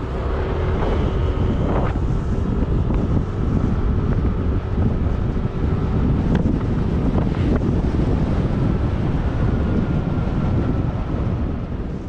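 Heavy wind buffeting the microphone of a camera on a moving motorbike, with the bike's engine running steadily beneath it.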